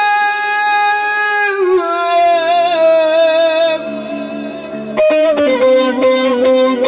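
A man singing one long held note that dips in pitch and wavers before fading, over a bağlama. About five seconds in, the bağlama (long-necked Turkish saz) takes over with fast, rhythmic plucked strokes.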